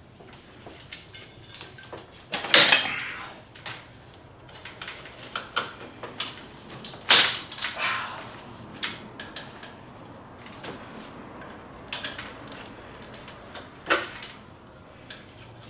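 Tools and car parts clinking and knocking during work on the car's AC system, with sharper clanks about two and a half seconds in, about seven seconds in and near the end.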